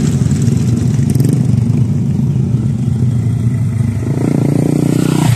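Small motorcycle engine running on a dirt trail, growing louder about four seconds in as the bike comes closer.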